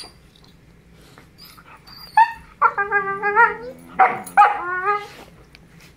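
Siberian huskies "talking": a run of wavering, pitched dog calls starting about two seconds in, the longest held for about a second, ending around five seconds in.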